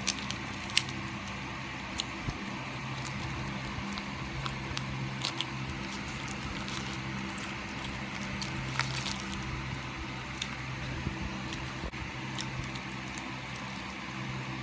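Eating a seaweed-wrapped rice ball: chewing and scattered crackles of its plastic wrapper and the seaweed, a few sharper clicks among them. A steady low hum runs underneath.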